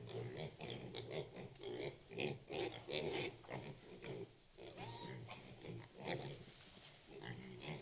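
Pigs grunting and oinking in quick, irregular succession, with a short higher-pitched call about five seconds in.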